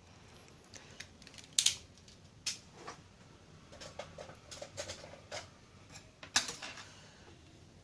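Small handling sounds at a repair bench: scattered clicks, taps and rustles, with three sharper clicks about a second and a half in, at two and a half seconds, and about six seconds in.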